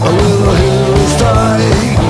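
Rock music with a steady beat, guitar and a sung melody line.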